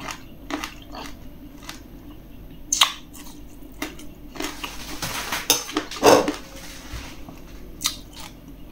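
A person chewing a juicy sour grape with the mouth closed: scattered wet clicks and smacks, the loudest about six seconds in.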